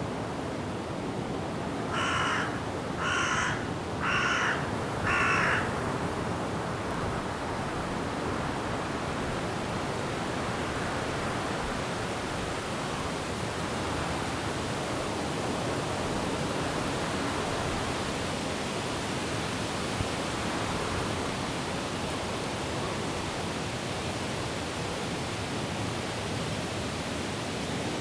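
Steady wind through the trees with falling rain. About two seconds in, a bird gives four short, harsh calls about a second apart.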